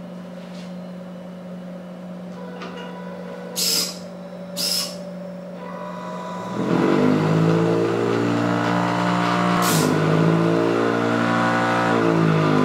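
Small electric motors of a homemade matchstick-lighting machine: a low steady hum with two short whirs, then a motor whine that spins up about six seconds in, holds, and winds down near the end. A short scrape about ten seconds in is the match being struck on the spinning disc and flaring alight.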